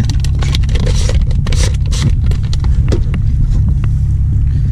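Steady low wind rumble on the microphone, with scattered small clicks and knocks over it.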